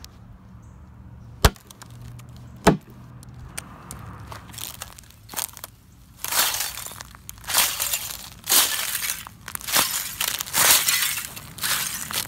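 Thin sheets of ice-storm glaze on grass cracking and shattering under booted feet: two sharp snaps near the start, then a crunch of breaking ice with each step, about one a second, from about four seconds in.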